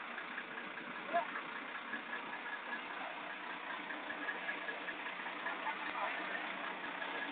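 Diesel engine of a locotrain, a road-rail shunting vehicle, running steadily.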